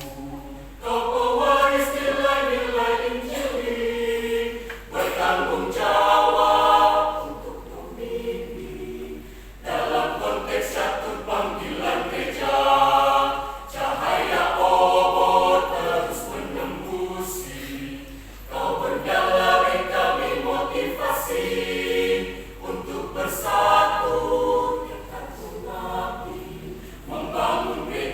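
Church choir singing a hymn in several voices, in sung phrases separated by brief breaths.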